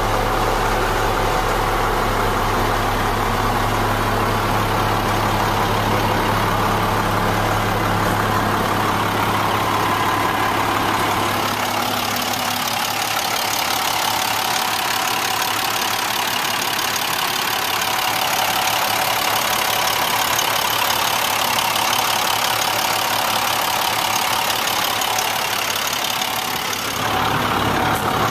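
2001 International digger truck's diesel engine idling steadily. About twelve seconds in, the deep hum drops away and a brighter, hissier engine sound takes over, as heard at the open engine compartment rather than in the cab.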